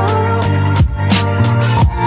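Background music: a beat of drum hits over sustained bass notes and a held melody line.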